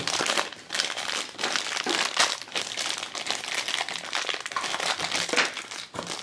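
A crinkly wrapper crackling and rustling as hands peel and crumple it off a small plastic toy pod, in a continuous run of crinkles.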